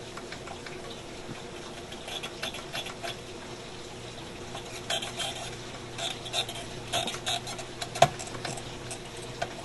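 Small hand tools clicking, tapping and scraping in irregular clusters while working a fine wire joint, with one sharper click about 8 seconds in. A steady low hum runs underneath.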